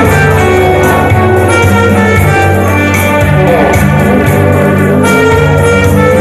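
Live band music from a guitar and keyboard duo: held keyboard and guitar notes over steady bass notes with a regular beat, and a lead note that slides in pitch about halfway through.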